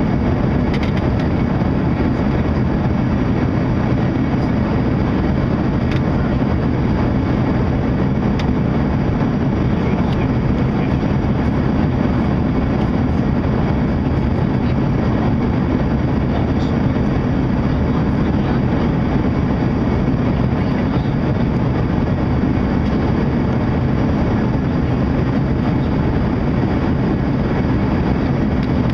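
Steady, loud cabin drone of an Embraer ERJ-145 regional jet in flight: the whoosh of airflow over the fuselage mixed with the hum of its twin rear-mounted turbofan engines, holding level throughout.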